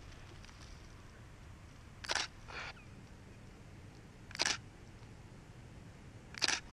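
Digital SLR camera shutter firing three times, about two seconds apart, the first shot followed half a second later by a softer second click.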